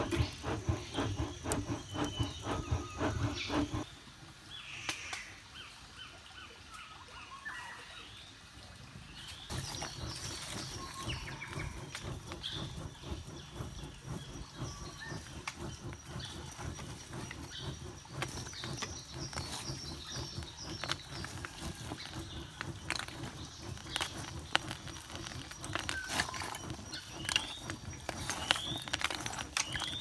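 Birds chirping, with short rising chirps near the end, over an outdoor background. An even, fast rhythmic beat runs for the first few seconds and then stops; later come scattered light clicks as lumps of charcoal are handled.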